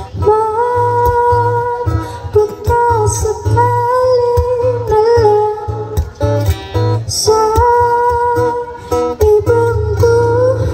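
A woman sings a slow melody with long held notes while playing an acoustic guitar, heard live through a PA system.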